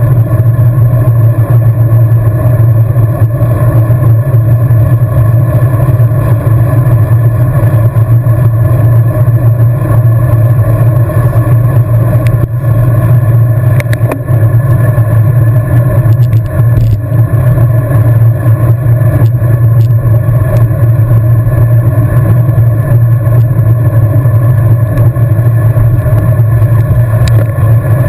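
Steady loud rush of wind and tyre noise on a bicycle-mounted camera riding at speed on a road bike, a constant low drone throughout.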